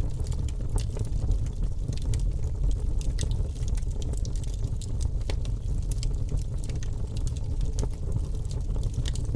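Wood fire crackling in a fireplace: irregular sharp pops and snaps over a steady low rumble of the burning flames.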